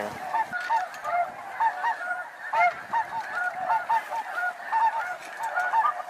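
A flock of snow geese calling together: a dense, continuous chorus of short, overlapping honks, several a second.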